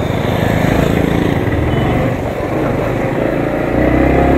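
Yamaha MT-15 motorcycle's engine pulling away and running on, getting steadily louder.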